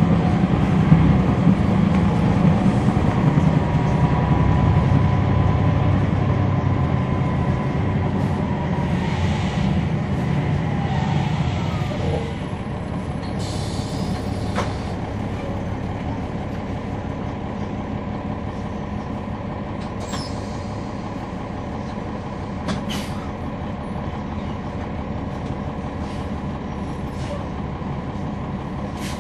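Cummins ISL9 diesel engine of a NABI 40-SFW transit bus heard from on board, pulling under load with a faint whine for the first dozen seconds, then easing off and running quietly. A short hiss of air from the air brakes comes about halfway through, with a few sharp clicks later.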